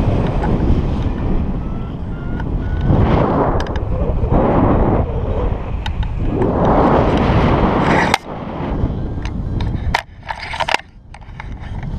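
Wind buffeting an action camera's microphone in flight under a paraglider, surging and easing in gusts, with scattered clicks and knocks as the camera pole is handled.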